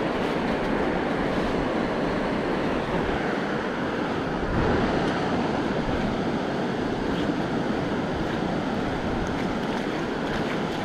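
Sea waves washing on the shore with wind on the microphone: a steady rush that swells briefly about four and a half seconds in.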